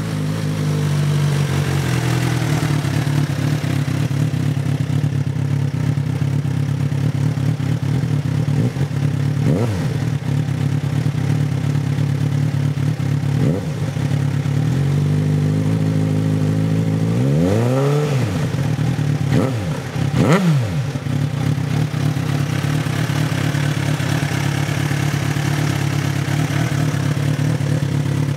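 Suzuki GSR600's inline-four engine idling through a GPR Ghost aftermarket exhaust, blipped four times, each rev rising and falling back to idle; the third blip is the longest and highest.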